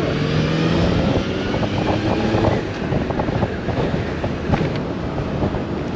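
Motorcycle engine running at road speed under steady wind and road noise, heard from the rider's seat. The engine note rises slightly over the first second or so.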